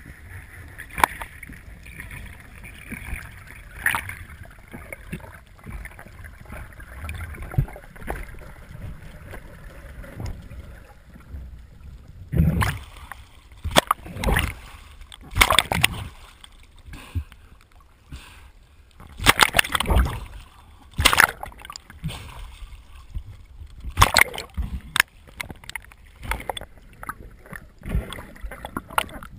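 Water heard through an underwater camera housing: a faint muffled hiss at first, then from about halfway a run of loud, irregular splashing and bubbling bursts as the camera moves up to the churned surface.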